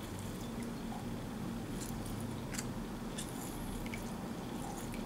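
A lime squeezed by hand over a dish of soy sauce: faint wet squishing with a few small crackles as the fruit gives, its juice dripping into the sauce, over a steady low hum.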